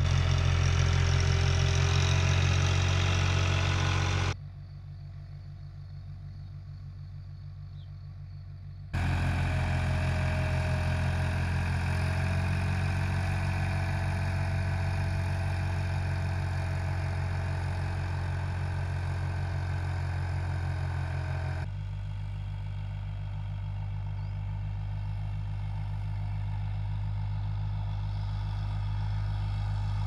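Tractor diesel engine running at a steady speed, changing abruptly at edits about 4, 9 and 22 seconds in, and quieter between about 4 and 9 seconds in.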